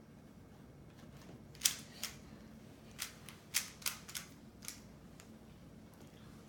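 3x3 Rubik's cube being turned by hand: irregular plastic clicks and clacks as its layers snap round, about eight over a few seconds, some in quick runs.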